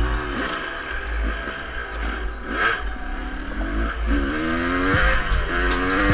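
1996 Yamaha YZ250 two-stroke dirt bike engine being ridden, its pitch climbing and dropping several times as the throttle is opened and closed, over a heavy low rumble.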